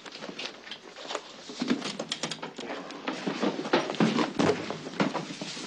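Hardcover books being picked up, handled and stacked: a busy run of knocks, clacks and rustles, thickest in the second half.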